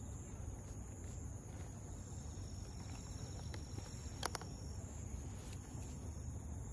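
Insects trilling steadily in a high, even whine over a low outdoor rumble, with one short sharp click about four seconds in.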